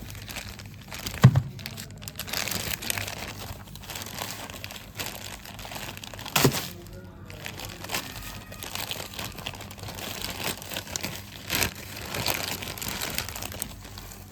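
Packaging crinkling and rustling as it is handled and opened, broken by three sharp knocks, the loudest about a second in and the others about six and twelve seconds in.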